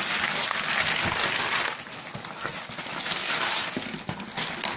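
Wrapping paper being torn off a large cardboard box and crinkling in hands, a dense rustle that eases briefly about two seconds in and again near the end.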